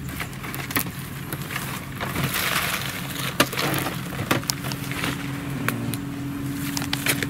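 Dry straw rustling and sharp clicks and rattles from a wire-mesh snake trap being handled, with a louder rustle about two to three seconds in. A steady low engine hum runs underneath.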